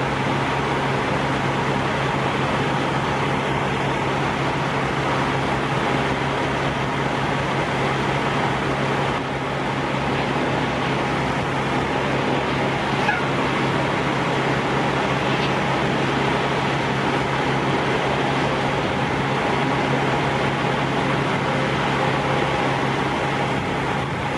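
Steady mechanical drone with a constant low hum under an even wash of noise, unchanging throughout.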